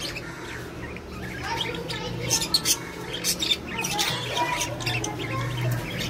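Pet budgerigars chirping and squawking, with a flurry of short sharp calls in the middle.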